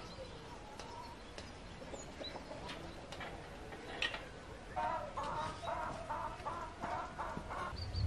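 Chickens clucking and cackling in a rapid run of short repeated calls over the last three seconds, with one sharp light knock about four seconds in.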